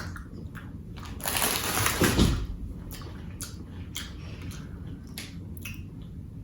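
Biting into a crunchy candy-studded cookie, then chewing it with sharp crunches about every half second.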